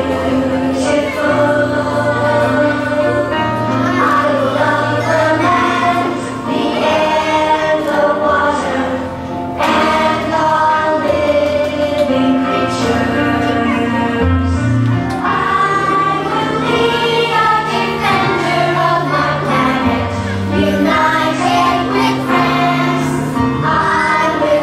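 A group of young children singing a song together over a recorded instrumental backing track with sustained bass notes.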